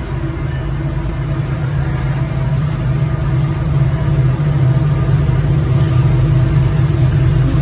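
Diesel locomotive at the head of a freight train approaching, its engine running with a steady low rumble that grows gradually louder as it nears.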